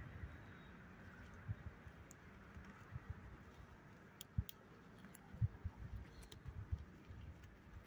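Faint clicks and knocks of a metal hive tool prying at wooden beehive frames to loosen one for lifting, with a few louder knocks in the second half.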